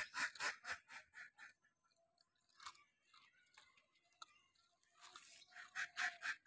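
Puppies crunching and chewing dry biscuits: a quick run of crunches about five a second, a stretch of only scattered bites, then fast crunching again near the end.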